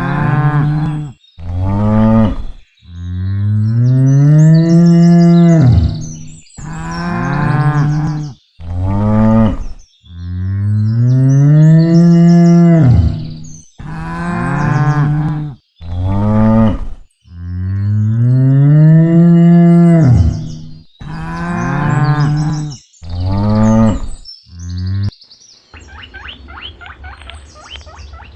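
Cattle mooing repeatedly: three long moos that rise and fall in pitch, each about three seconds, with shorter moos between them. Near the end the mooing stops and a quieter, rapid, high squeaky chattering begins.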